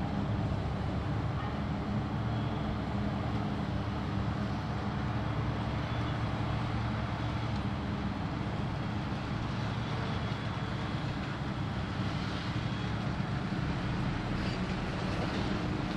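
Diesel engines of tractors and silage machinery running steadily, an even engine sound with no revving or break.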